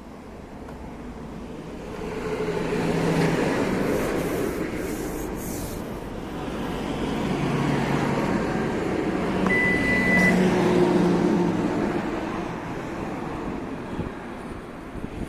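Lexus RX power rear gate moving on its replacement countermeasure dampers, in two long movements of several seconds each, with one short beep partway through the second. The gate runs with no abnormal noise from the dampers.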